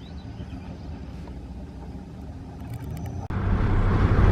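A vehicle's engine rumbling steadily at low level; about three seconds in it cuts abruptly to much louder engine and road noise of a vehicle on the move.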